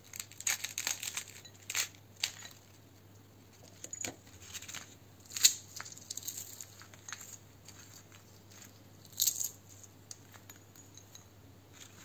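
Crisp honey-glazed fried pastry (cartellate) cracking and crackling as it is broken apart by hand, a run of small snaps with one louder crack about halfway through and another near the end.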